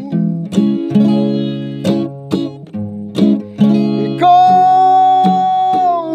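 Acoustic guitar strummed in chords, with a woman's singing voice holding one long high note from about four seconds in.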